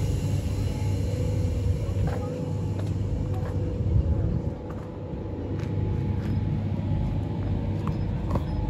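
NSW 42 class diesel locomotive 4201, with an EMD two-stroke V16 engine, running near the platform: a steady low rumble with a faint steady whine above it.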